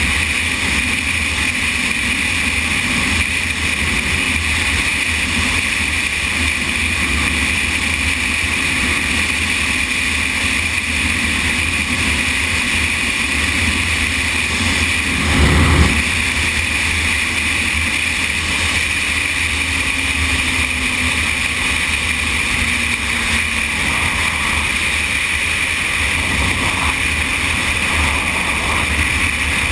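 Yamaha Thundercat motorcycle riding at road speed: steady wind rush over the bike-mounted camera's microphone, with the inline-four engine running underneath. A louder rush swells briefly about halfway through.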